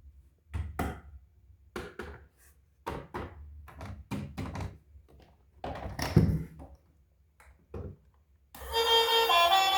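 Several irregular knocks and thuds, some in quick pairs, the loudest about six seconds in. Music with a steady melody starts near the end.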